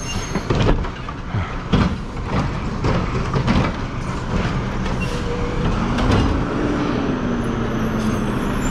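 Garbage truck engine running as the truck pulls up, its pitch rising and easing off slightly after about six seconds, with a series of clanks and knocks in the first few seconds.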